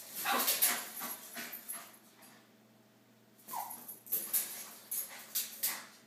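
Chihuahua whimpering while scratching and pawing at a metal parrot cage. Short bursts come for about two seconds, then a pause of over a second, then more bursts to the end.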